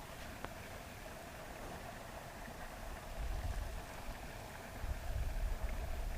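Wind buffeting the microphone: a low, uneven rumble that comes in gusts, about three seconds in and again near the end, over a faint steady outdoor hiss.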